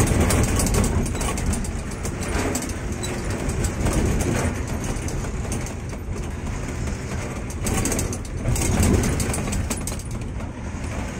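Truck engine running and road noise heard from inside the cab while driving, a steady low rumble with light rattling of the cab.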